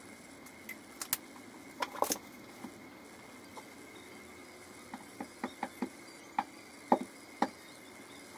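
Scattered light clicks and taps from handling an eyeshadow palette and makeup brush: a few about one to two seconds in, then a run of them between about five and seven and a half seconds.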